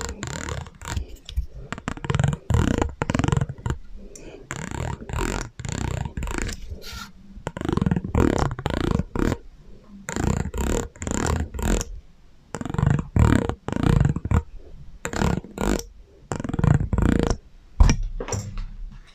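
ASMR trigger sounds run through an echo effect: a string of irregular short noises, each trailing off in a gliding, ringing tail.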